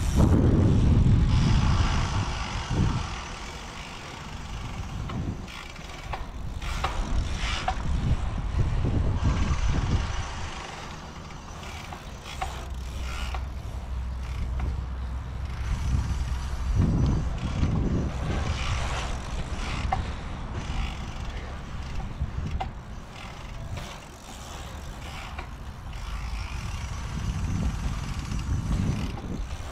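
Cyclocross bike ridden over the rollers of a pumptrack: tyres rolling and wind buffeting the microphone, swelling and fading every few seconds as the bike pumps up and down the humps.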